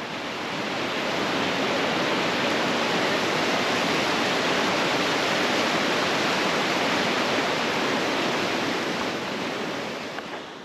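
Fast river swollen with spring runoff, a steady rushing of water that grows louder over the first second or two and eases off near the end.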